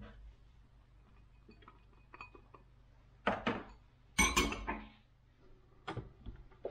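Dishes clinking: a white ceramic bowl is set down in a stainless steel sink, a few sharp clinks with a short ringing, the loudest just after four seconds in.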